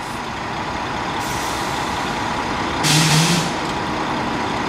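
Heavy diesel vehicle running at idle with a steady rumble, and a short air-brake hiss about three seconds in.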